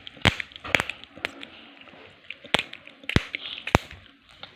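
Chewing gum being chewed with loud snaps: about six sharp clicks spread unevenly over a few seconds, with faint crackling between them.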